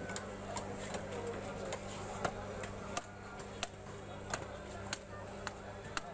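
Sharp knocks, roughly one or two a second at uneven spacing, as a large pangas catfish is chopped through on a fishmonger's fixed upright blade. A steady low hum runs underneath.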